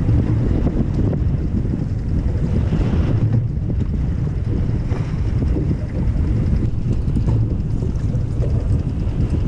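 Steady wind buffeting the microphone on a fishing boat at sea, a low, gusty rumble with the rush of water around the hull.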